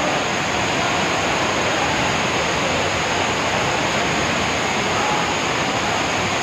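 Floodwater rushing in a fast, shallow torrent over paving: a loud, steady rush of water with no breaks.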